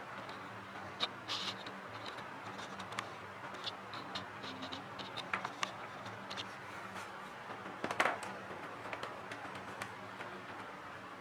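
Scattered small clicks and scrapes of hands handling the parts of a PS4 Pro being taken apart for cleaning, the loudest clatter about eight seconds in, over a low steady hum.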